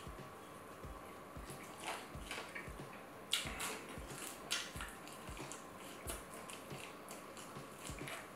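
Close-miked eating sounds: chewing with wet mouth clicks and crackles, and a few sharper smacks.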